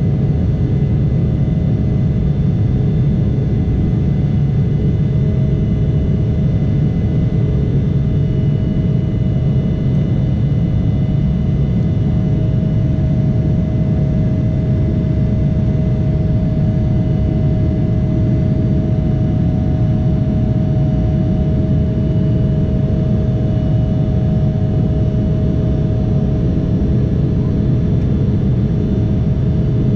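Cabin noise of an Embraer 175 climbing out after takeoff: its GE CF34-8E turbofan engines make a steady deep roar with a steady whine above it.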